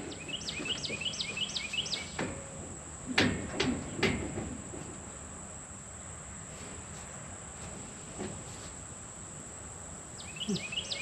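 A few sharp metal knocks about three and four seconds in as the combine's chopper drive pulley is worked loose and moved to the slow setting for corn. A bird calls in quick runs of repeated chirps near the start and again near the end, over a steady high insect whine.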